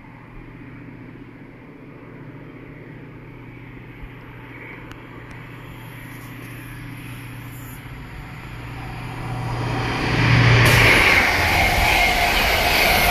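A High Speed Train's Class 43 diesel power car approaches with a steady engine hum that grows gradually louder. About ten seconds in it gives way suddenly to the loud rush of Mark 3 passenger coaches passing close by on the rails.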